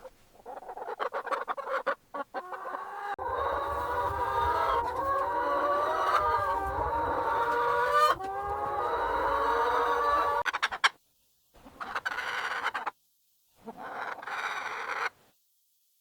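A flock of chickens clucking, many calls overlapping, busiest in the middle stretch. The sound then breaks off suddenly several times, leaving short bursts of clucking.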